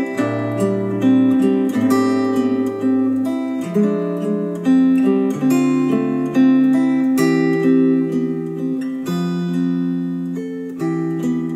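Acoustic guitar music, plucked and strummed chords changing about once a second, played back through KEF Q350 bookshelf speakers driven by an Arcam SA10 integrated amplifier.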